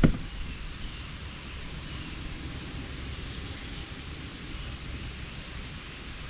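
Outdoor lake ambience: a steady low rumble of wind on the microphone with faint high chirps in the background, after a single sharp knock right at the start.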